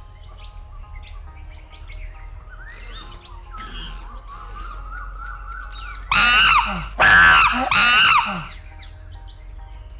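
Animation sound effects of birds chirping over light background music, then three loud calls with bending pitch in quick succession, about six seconds in.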